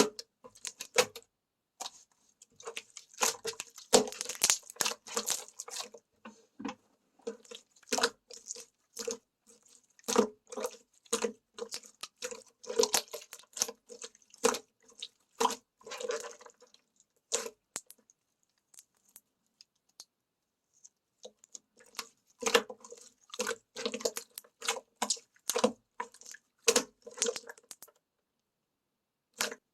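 Slime being squeezed, poked and stretched by hand, making runs of quick crackling pops and squishy clicks. It pauses for a few seconds midway, then the popping starts again.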